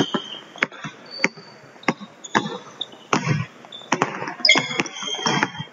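Basketballs dribbled on a hardwood gym floor, a bounce about every half second, mixed with short high squeaks of sneakers on the court.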